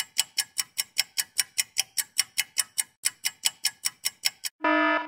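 Countdown-timer sound effect: a clock ticking quickly and evenly, about five ticks a second, then a short steady electronic alarm tone near the end as the time runs out.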